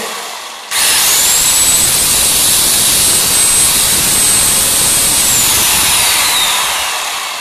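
Bosch GKS 140 circular saw's motor test-run with no blade fitted, after the carbon brushes were refitted. Still winding down from a brief start, it is switched on again a little under a second in. It runs at full speed with a high whine for about four and a half seconds, then is switched off and spins down with a falling whine. It runs freely, the sign that the reassembly is good.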